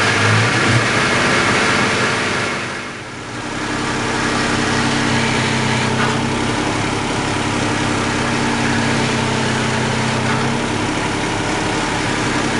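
Engine of a jacked-up four-wheel-drive vehicle running in gear under throttle, driving a raised wheel. It eases off briefly about three seconds in, then holds a steady speed.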